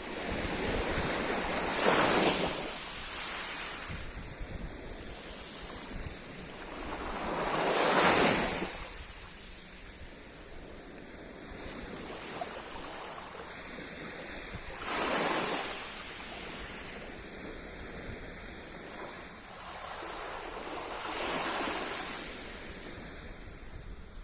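Sea surf: four waves break about six seconds apart. Each swells to a loud wash and falls back to a steady hiss of foam.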